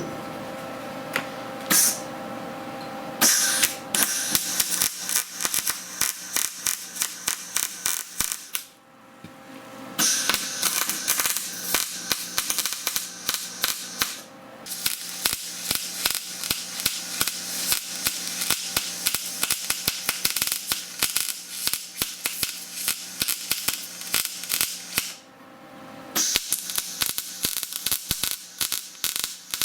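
A brush scrubbed hard and fast over metal: quick rasping strokes, several a second, with a few short pauses.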